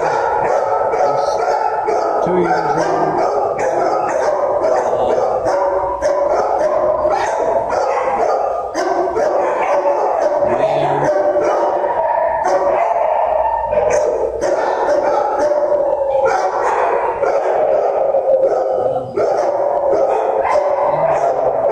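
Many shelter dogs barking and howling at once in a concrete kennel block, a continuous overlapping din with no pauses.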